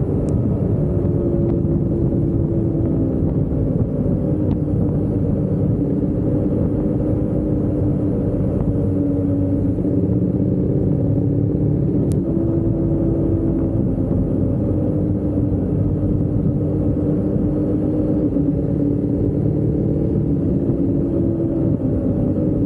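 Motorcycle riding along at a steady speed: its engine running under a dense rumble of wind and road noise. The engine note drifts gently up and down.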